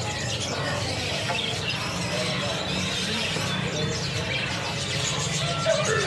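Many caged songbirds chirping and calling at once over a steady low hum: the mixed chorus of a crowded bird market.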